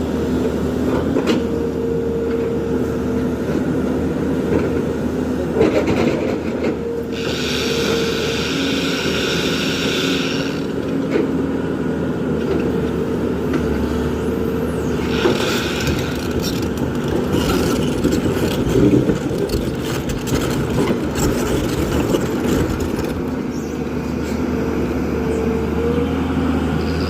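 Diesel engine of a JCB 3DX backhoe loader running steadily under work, with a brief higher hiss about eight seconds in and again about fifteen seconds in.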